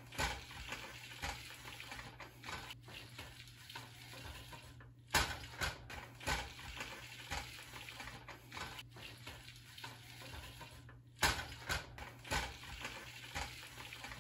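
Wooden spoon stirring cooked macaroni in a pot: soft, irregular scraping and clicking, with two louder knocks, one about five seconds in and one near eleven seconds.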